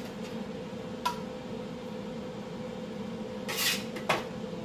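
Kitchen knife and fingers working seasoning on a metal baking sheet: a light tap about a second in, then near the end a brief scrape and a sharp clink of metal on metal, over a steady low hum.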